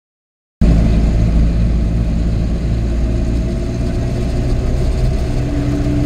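A road vehicle's engine running at a steady cruise, with road noise, heard from inside the cabin as a steady low drone. It begins about half a second in.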